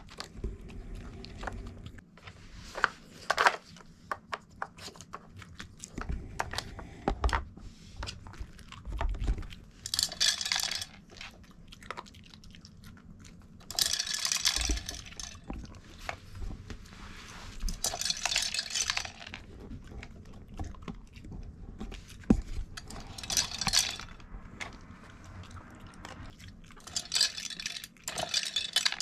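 Mame-shiba working a treat-dispensing puzzle toy: repeated clicks and knocks of the toy, several second-long rattles of treats shaken about inside it, and the dog crunching treats.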